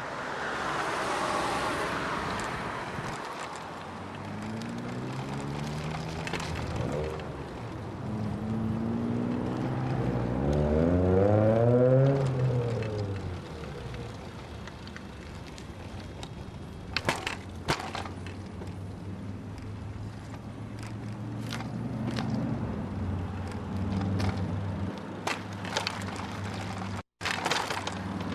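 A moving vehicle's engine running, its pitch rising and falling several times over rolling and wind noise. A few sharp clicks follow later.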